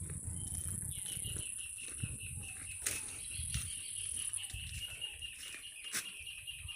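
Insects chirring in the countryside: a steady high-pitched buzz throughout, joined about a second in by a second, lower continuous trill. A few faint sharp clicks and a low rumble sit beneath.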